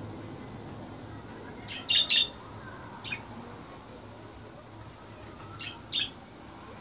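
Budgerigars giving short, sharp chirps: two quick ones about two seconds in, a fainter one near three seconds, and another pair near six seconds.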